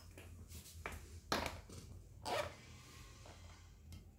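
Faint handling noises: a short rustle, then a sharp tap about a second and a half in, and a longer rustle a second later.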